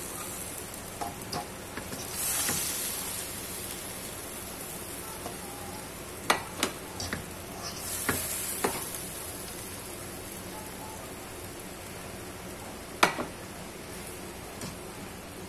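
Stir-fried vegetables and chicken sizzling in a wok, the sizzle swelling twice. A wire spider strainer scoops them out and clinks against the pan several times, loudest near the end.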